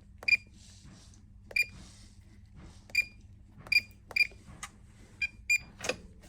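Newly fitted electronic safe keypad beeping as a code is keyed in: a short high beep for each key press, about eight at irregular intervals.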